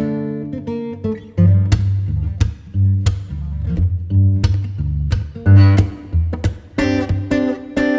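Background music: acoustic guitar strumming chords in a steady rhythm over low bass notes.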